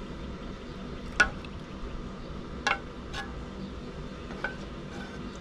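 Metal spoon clinking against a metal saucepan as melted butter is spooned out: four sharp clinks, the loudest a little over a second in, over a steady low background noise.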